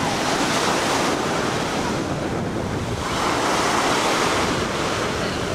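Ocean surf breaking and washing up onto a sand beach, swelling twice, with wind buffeting the microphone.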